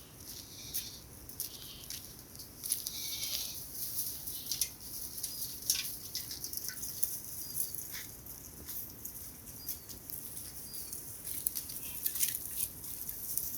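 Outdoor ambience of scattered small high-pitched chirps and light clicks over a steady high hiss.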